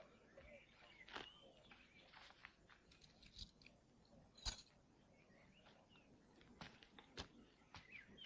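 Near silence: quiet outdoor ambience with scattered faint clicks and a few faint high bird chirps.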